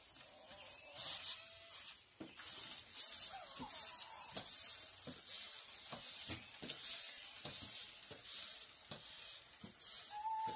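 Toy robot dogs moving about: a run of short hissing bursts, roughly one or two a second, mixed with light clicks and taps, and a faint electronic whine gliding in pitch.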